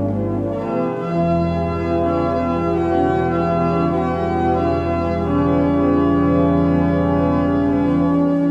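Church pipe organ playing slow held chords over a sustained low bass note, improvising on an Advent hymn; the bass note moves lower about a second in and changes again near the end.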